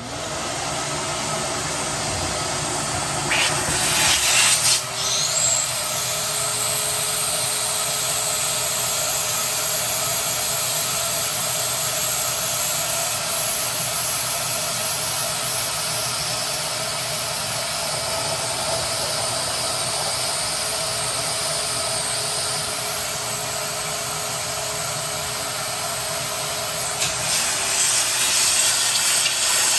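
Wet vac motor running steadily, sucking standing water out of a dishwasher's sump. There are louder, rougher surges about four seconds in and again near the end, as the hose starts pulling air along with the last of the water.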